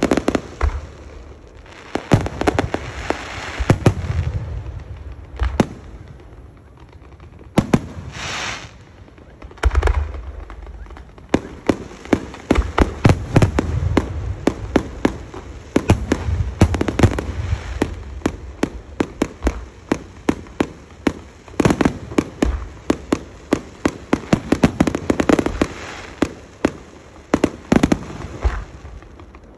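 Fireworks display: shells bursting in many sharp bangs with crackling, and a brief hiss about eight seconds in. The bursts come thick and fast, a dense barrage, from about twelve seconds on.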